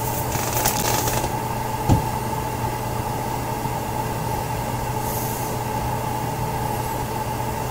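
Steady low hum and hiss with a faint constant tone, with a few faint clicks in the first second and a single short thump about two seconds in.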